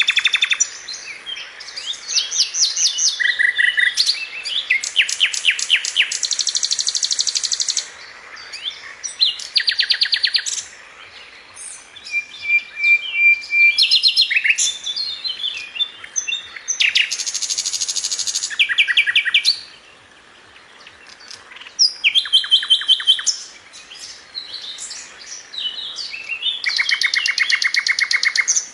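Songbird singing a long, varied song of fast trills and rapid runs of repeated high notes, with short whistled phrases and a few brief pauses between bouts.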